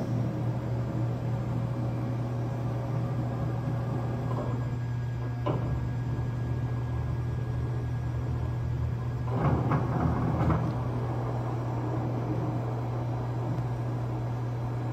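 Steady low mechanical hum of machinery in a shop, with a single knock about five and a half seconds in and a short burst of clattering knocks around ten seconds in.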